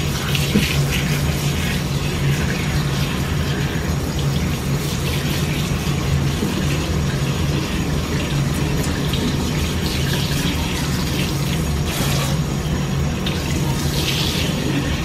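Water running steadily from a hand-held sink sprayer, splashing through hair into a stainless steel kitchen sink.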